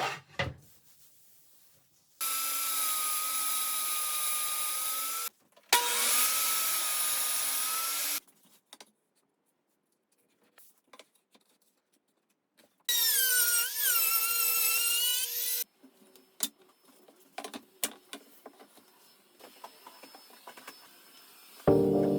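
Electric woodworking power tool running in three bursts of a few seconds each, its motor whine dipping and wobbling in pitch as it bites into the wood. Light clicks and knocks of handling the workpiece follow.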